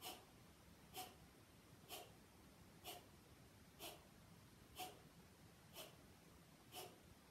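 Kapalbhati pranayama breathing: short, forceful exhalations through the nose, driven by pulling the belly in, at a steady pace of about one a second, eight in all. Each is a brief puff of air.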